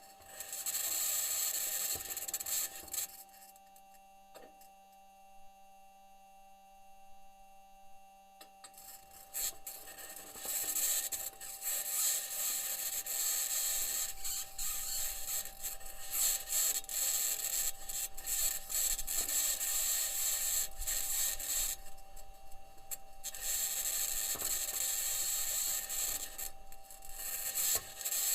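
Perseverance rover driving on Mars, recorded by its onboard microphone: a harsh, scratchy grinding and rubbing from the wheels and mechanisms, with a high hiss and a steady hum under it. The scratching drops away to the hum about three seconds in for several seconds, and again briefly past the twenty-second mark.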